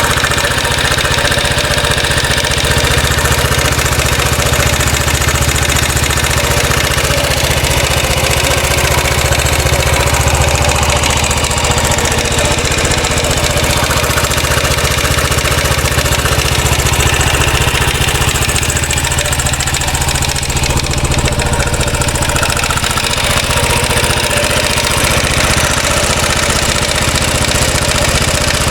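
2013 Royal Enfield Classic 500's single-cylinder engine idling steadily, with the oscillating rattle that the owner is trying to track down.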